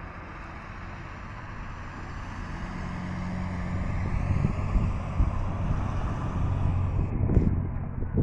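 Bus engine running as the bus approaches along the road and passes close by. It grows steadily louder from about two seconds in and is at its loudest near the end.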